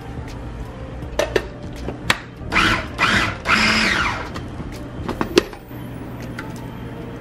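Small food processor pulsed about three times in quick succession, chopping cilantro into blended tomatillo salsa verde. Sharp knocks and clicks of the plastic bowl and lid come before and after the pulses.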